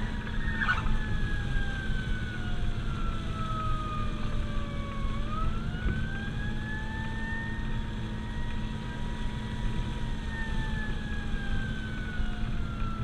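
Fire apparatus siren wailing in a slow cycle: falling for about five seconds, rising again, holding, then falling. It is heard from inside the cab over the steady drone of the engine and road noise.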